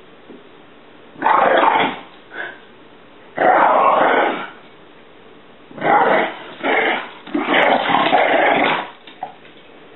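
Several loud bursts of growling and hissing as a Jack Russell terrier and a tabby cat square off, each lasting about half a second to a second and a half, the longest near the end.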